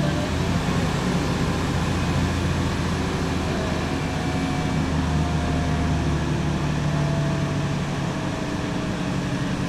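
Heuliez GX 127 city bus heard from inside the passenger cabin on the move. Its Iveco Tector 6 six-cylinder diesel and Allison six-speed automatic give a steady low drone, with a faint whine above it that slides slowly lower in pitch. The deep drone eases slightly about eight seconds in.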